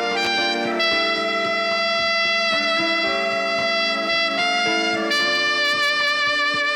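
Alto saxophone playing a slow melody of long held notes, moving to a new note about a second in and again near the end, over a backing track with a steady beat.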